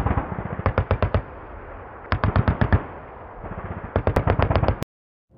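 Short bursts of automatic machine-gun fire, about ten shots a second, in three bursts separated by brief pauses, cutting off abruptly near the end.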